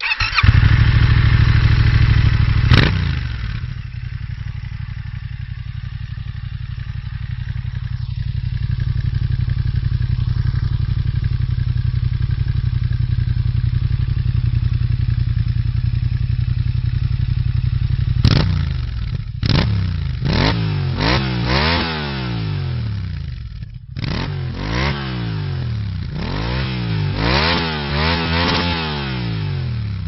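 Yamaha XSR700's 689 cc parallel-twin engine running through a MIVV carbon slip-on exhaust. It is loud for the first few seconds, settles to a steady idle, and then from about two-thirds of the way in is revved in a series of quick throttle blips, each rising and falling in pitch.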